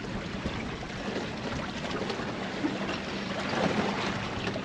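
Choppy seawater sloshing and lapping against a kayak, an even watery wash with no pauses.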